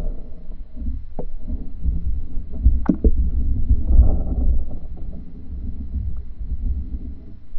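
Muffled, uneven low rumble of water moving around a phone microphone held underwater, with two short knocks, one about a second in and one near three seconds in.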